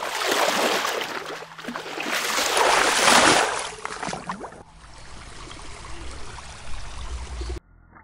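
Water sound effect: splashing, trickling water that swells up twice, then settles to a quieter steady running-water hiss that cuts off suddenly near the end.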